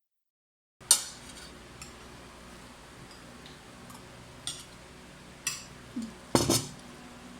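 Cutlery clinking against a plate during a meal: a handful of sharp clinks, the loudest about a second in and a quick cluster near the end.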